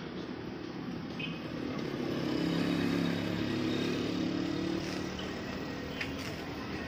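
A motor engine running steadily with a low hum, swelling louder for a few seconds in the middle and then easing back.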